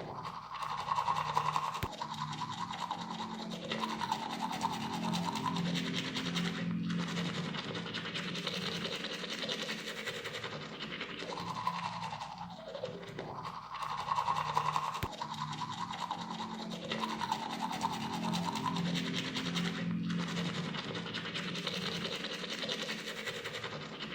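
A person brushing their teeth with a toothbrush: continuous scrubbing strokes that change in texture every few seconds.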